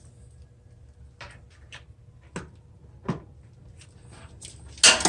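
A few light clicks and knocks from handling the thin sheet-metal tool cabinet, then a louder clatter near the end.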